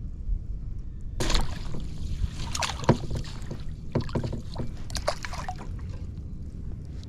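Irregular knocks and clatters of gear and hands moving about on a kayak, starting about a second in, over a steady low rumble of wind on the microphone.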